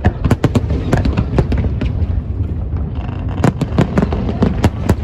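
Aerial fireworks going off in rapid volleys of sharp bangs and crackles over a low rumble. The bangs thin out about two seconds in, then come thick and fast again from about three seconds.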